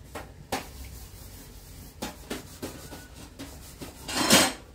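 Light knocks and rubbing of cooking things being handled, with one louder, short scraping rush about four seconds in.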